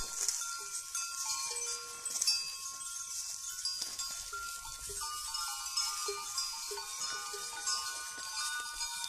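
Bells on a herd of goats ringing and clanking as the animals move and graze, many overlapping tones struck again and again.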